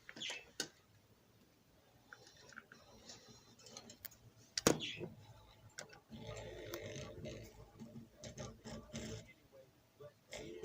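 Handling noise: scattered clicks and a sharp knock about four and a half seconds in, then several seconds of rubbing and rustling as something is handled.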